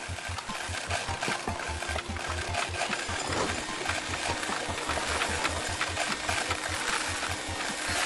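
Upright vacuum cleaner running with a steady hiss over background music with a regular low beat; a steady hum joins about three and a half seconds in.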